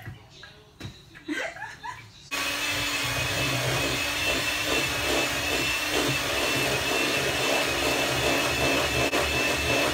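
Electric mixer switched on a couple of seconds in and running steadily at speed with a high whine, beating brownie batter of milk, oil and eggs.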